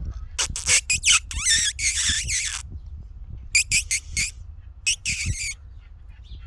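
Brittany spaniel puppies squealing in short high-pitched bursts, in three clusters: about half a second in, around the middle, and again about five seconds in.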